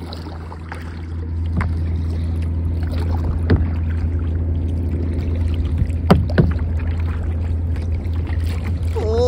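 Kayak moving across choppy river water: a steady low rumble that swells about a second in, broken by a few sharp knocks or splashes against the hull.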